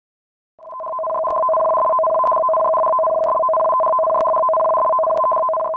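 Electronic tsunami-warning alert tone: two steady held pitches that fade in about half a second in and hold, with faint clicks about once a second.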